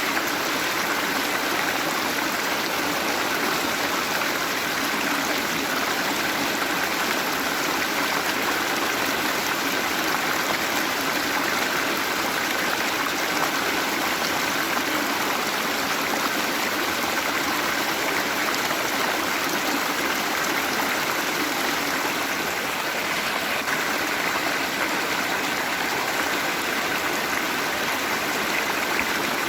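Waterfall: water falling and running in a steady, even rush.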